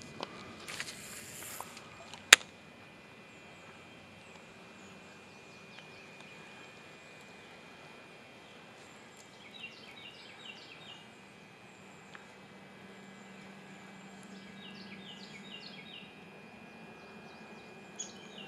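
Cast of a fishing rod: a short rushing swish of line near the start, then a single sharp click about two seconds in, the loudest sound. After it come birds chirping in quick runs of notes a few times, over a faint steady insect drone.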